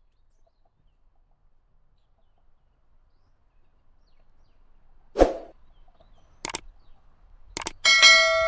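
A dull knock, then two short sharp clicks, then a metal clang near the end that rings on with several clear tones.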